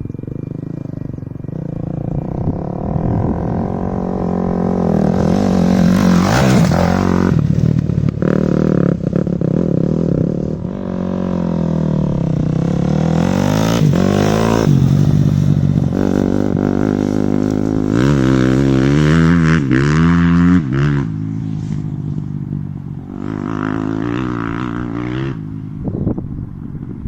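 An engine running and revving, its pitch sliding down and back up several times.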